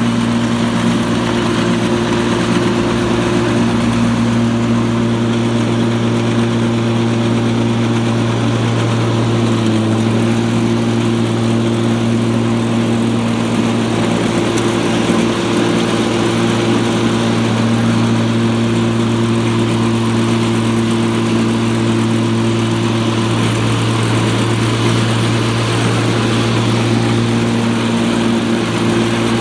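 Electric-converted Craftsman LT1000 lawn tractor running under its 48-volt electric motor with the deck engaged, the belts and mower blades spinning as it drives over grass: a steady, pretty loud hum and whir with no engine exhaust note.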